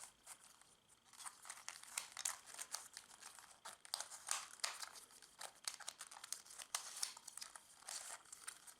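Plastic MF8 Dino Cube being scrambled by hand: a run of irregular clicks and scrapes as its corners are twisted, with rough turning.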